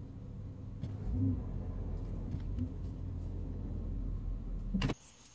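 Car engine running with a steady low rumble and a few light knocks, cutting off abruptly near the end.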